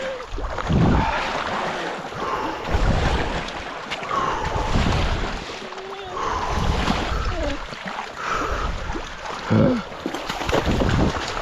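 Water splashing and sloshing around legs wading in shallow river water, with gusts of wind on the microphone. Short pitched cries that rise and fall come in now and then, about eight times.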